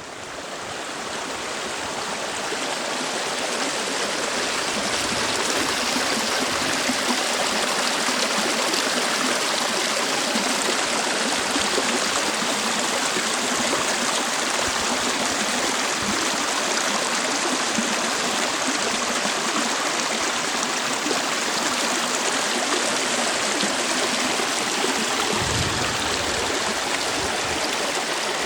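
Mountain stream water rushing and gurgling steadily over rocks, fading in over the first few seconds.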